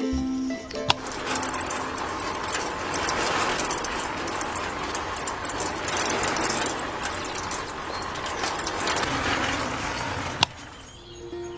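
A small machine's gears rattling and whirring steadily for about nine seconds, starting and stopping with a sharp click.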